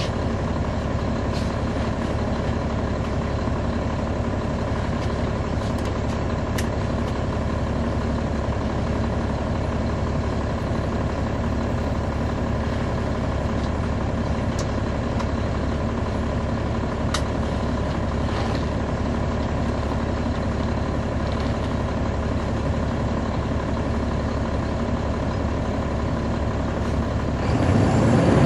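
Caterpillar C13 diesel engine of a NABI 40-foot transit bus idling steadily, heard from inside the bus near the rear, with a few faint clicks. About a second before the end the engine note swells louder as it picks up.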